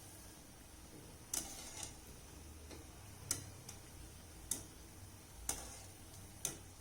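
Urad dal bondas frying in hot oil, with faint sharp pops or ticks from the oil about once a second.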